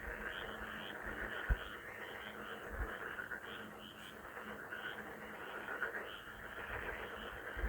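A chorus of frogs calling: many croaks overlapping in a steady pattern of a few calls a second. A couple of short low thumps come in the first few seconds.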